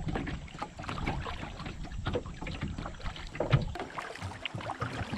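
Creek water splashing and lapping against the hull of an inflatable kayak as it moves down a shallow, flowing stretch, with many irregular small splashes and knocks.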